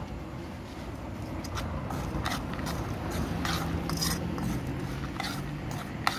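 Metal utensil and hand scraping and clinking in an aluminium bowl as aloo kabli is mixed, in scattered short strokes over a steady low rumble of street traffic.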